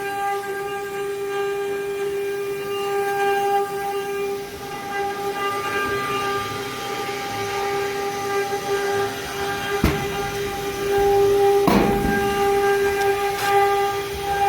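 CNC machine running with a steady high whine and overtones. Three sharp clicks or knocks come in the last few seconds, and it gets somewhat louder after the first of them.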